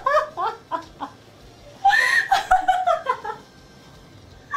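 Young women laughing hard: two bursts of high-pitched giggling, the second starting about two seconds in, then a short lull.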